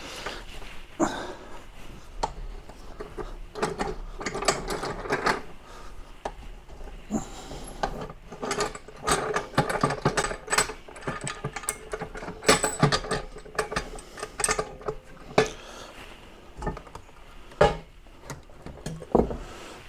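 Irregular clanks, clicks and knocks of a metal resin-casting pressure pot being handled: its clamp knobs turned and its gauge-fitted lid lifted and set down.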